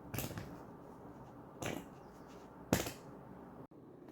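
Three short, sharp impact sounds like slaps or knocks, spread over about three seconds, the last the loudest.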